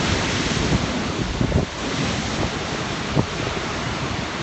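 Sea waves washing against the rocky shore close by, a steady hiss of surf with wind buffeting the phone's microphone and a few brief low thumps.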